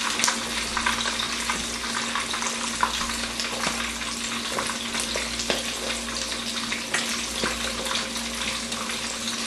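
Pieces of red snapper frying in hot oil in a wok: a steady sizzle full of small pops and crackles, with a faint steady hum underneath.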